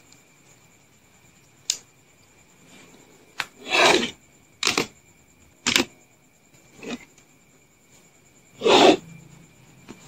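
LEGO plastic bricks being handled and pulled apart: a few sharp clicks and several short scraping rasps of plastic against plastic, the loudest about four seconds in and near the end.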